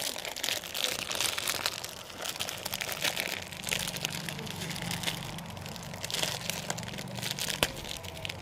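Rustling and crinkling of a sheet of material being folded and handled by hand, with many small clicks and crackles.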